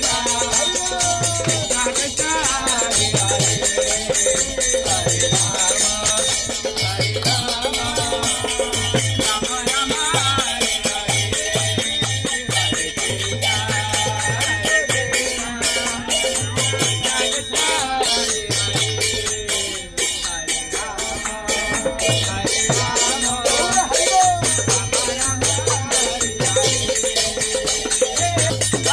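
Devotional kirtan: a group singing with brass kartal hand cymbals clashing in a fast, steady rhythm and intermittent beats from a mridanga drum.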